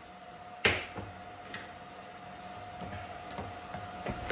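A sharp click about half a second in, then scattered light ticks and clicks over a faint steady hum.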